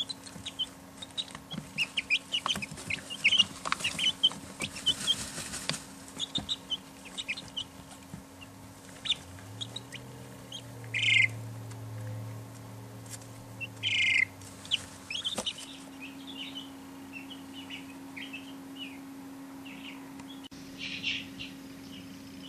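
Young chicks peeping in short, high chirps scattered throughout, with a few louder calls about halfway through, again a little later, and near the end.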